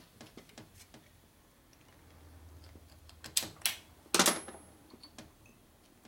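Light metallic clicks of a screwdriver working the pushrod tube clips on a Harley Shovelhead engine. Two sharper clicks come about three and a half seconds in, then a louder metal clatter with a brief high ring just after four seconds as the screwdriver is set down on the steel bench.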